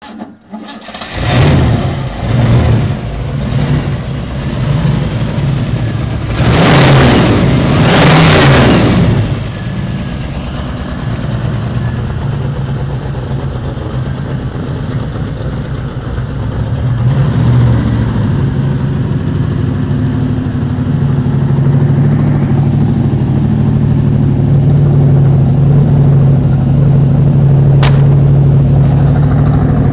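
Ford Maverick GT's V8 engine starting up about a second in, revved in several blips with a long, loud rev between about six and nine seconds, then settling into a steady rumbling idle. A single sharp click sounds near the end.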